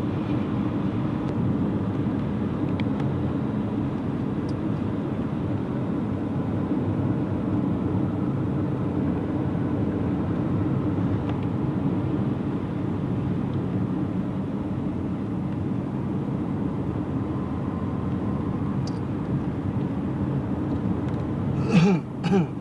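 Steady road and engine noise of a car cruising at highway speed, heard from inside the cabin. Near the end a short, louder sound breaks in.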